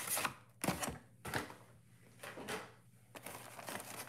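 Clear plastic packaging of a Pokémon card box being handled by hand: a few short light knocks and crinkles with quiet gaps between.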